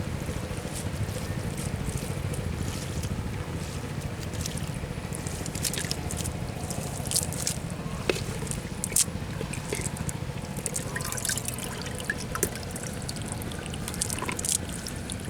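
Water trickling and dripping in short, scattered spatters over a steady low rumble.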